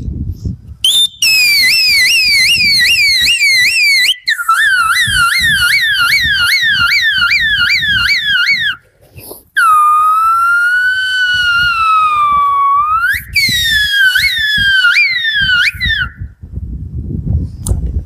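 A man whistling through his cupped hand in imitation of a VIP convoy vehicle's siren. It goes in rapid rising whoops, about three a second, breaks off briefly, swells into one slow rise-and-fall wail, then returns to the quick whoops.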